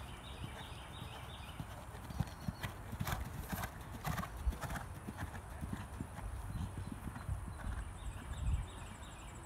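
A horse cantering in a hunter round, its hoofbeats coming as irregular low thuds that grow heavier about two seconds in. A few sharp clicks sound around three to four seconds in.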